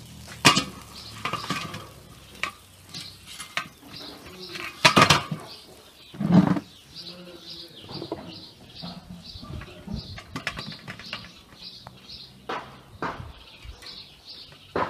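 Metal clattering of a hinged wire grill basket on a metal tray, with tongs and a fork scraping and clicking against the wires as the grilled kebabs are freed. There are sharp clanks about half a second in and again around five seconds in, a duller knock soon after, and lighter clicks between.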